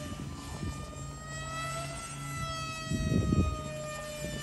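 Whine of a 3D-printed RC plane's 4S electric motor and pusher propeller passing high overhead: a steady high whine whose pitch dips slightly, lifts a little, then falls again near the end. A short, louder, muffled low noise comes about three seconds in.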